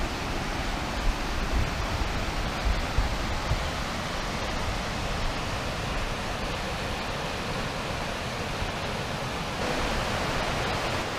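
Mountain creek cascading over rocks: a steady rush of whitewater, with an uneven low rumble in the first few seconds. The rush turns a little brighter near the end.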